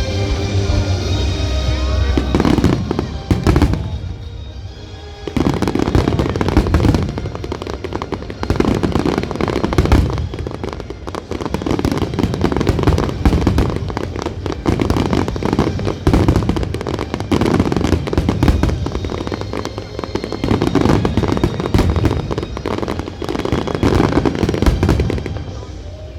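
Fireworks display going off in a dense, continuous barrage of bursts and booms, easing briefly about four seconds in and then building again. Music plays under it at the start.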